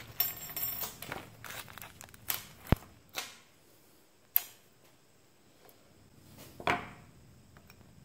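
Small plastic bags of pen-kit parts crinkling as they are handled. A few sharp clicks and taps follow as the bags and small metal parts are set down on the workbench, and there is a short rustle near the end.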